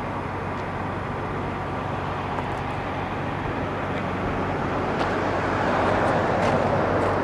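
Steady running noise of a motor vehicle, a low hum under an even rush, growing slightly louder toward the end.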